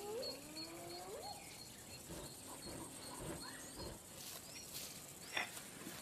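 Faint wildlife sounds: a few short animal calls that slide upward in pitch in the first second or so, over quick high bird chirps, with scattered fainter calls later.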